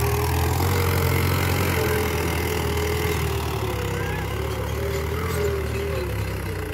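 A Mahindra tractor's diesel engine running steadily under load as it pulls a spring-tine cultivator through the soil.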